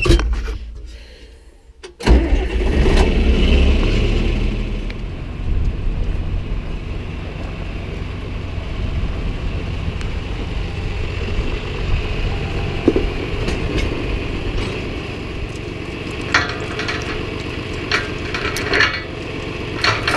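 A farm engine starts up about two seconds in and keeps running steadily, with some rattling and clanking near the end.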